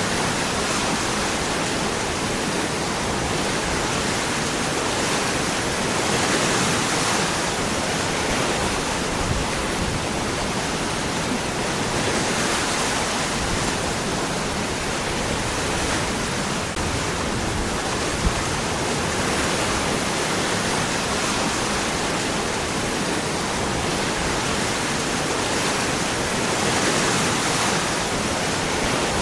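Waterfall: water falling and rushing among rocks, a steady full rushing noise that swells gently now and then.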